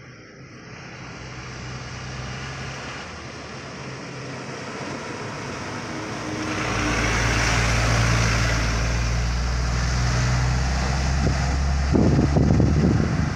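Heavy Mitsubishi Fuso diesel truck approaching and passing close, its low engine rumble building over several seconds and loudest from about six seconds in. A rougher, gusty rumble comes near the end.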